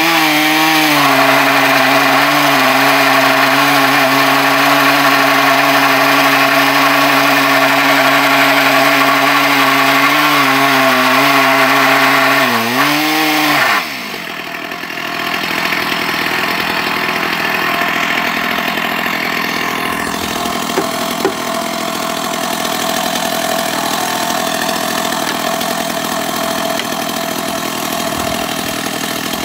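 Stihl chainsaw on a chainsaw mill ripping lengthwise through an ash log, running steadily under load, with brief dips in pitch at the start and again about 13 seconds in. About 14 seconds in, that sound stops abruptly and a quieter, steady engine sound carries on.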